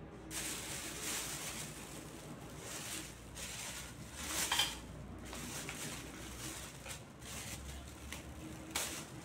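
Plastic wrapping and paper packaging rustling and crinkling as hands pull them out of a box, with a sharper burst of crackling about halfway through and another near the end.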